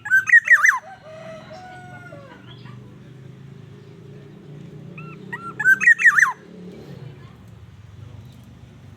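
Black-naped oriole giving two short phrases of quick, fluty whistled notes, one at the start and one about five and a half seconds in, with a lower, drawn-out call just after the first phrase.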